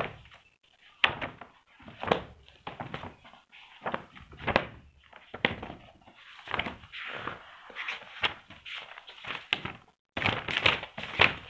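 Pages of a thick book being flipped through by hand: a series of quick papery rustles and flaps, one after another, with a few sharper page snaps.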